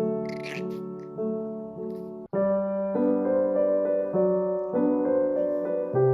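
Solo piano background music, held chords and a slow melody; it cuts off for an instant about two seconds in and picks straight up again.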